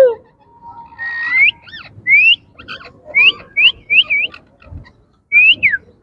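Indian ringneck parakeet whistling: a string of short, rising whistled calls in quick succession, with one falling call near the end.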